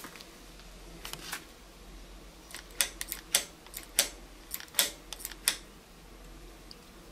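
Bicycle rim-brake lever squeezed and released several times, giving a series of sharp mechanical clicks and snaps, most of them bunched in the middle, as the newly adjusted return spring pulls the brake back to rest.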